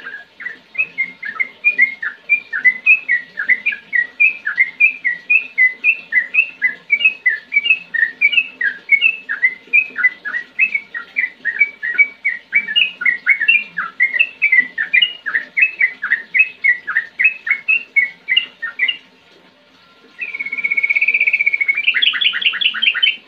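Yellow-vented bulbul singing: a long, quick run of short chirping notes that rise and fall, then after a brief pause a held, wavering note that breaks into a fast trill near the end.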